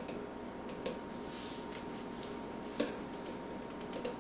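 Salt being shaken from a cardboard salt canister into a plastic tub of water: a few light clicks and taps from handling the canister, the loudest a little under three seconds in, with a brief soft hiss of salt pouring. A faint steady hum sits underneath.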